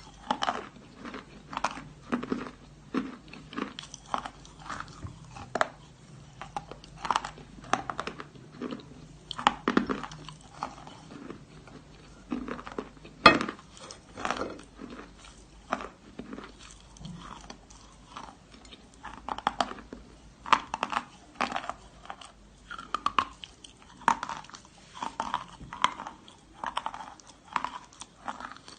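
Close-up biting and chewing of dry, gritty natural chalk (Akbulak): a run of crisp, irregular crunches, with one sharp loud bite about 13 seconds in.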